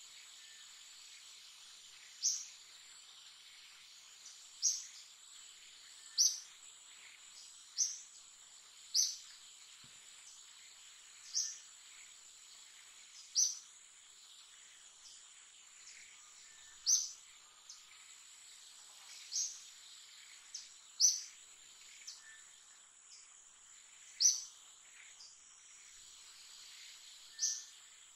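Tropical treetop ambience: a steady, high-pitched insect drone, cut by short, sharp, falling bird calls that repeat about every two seconds.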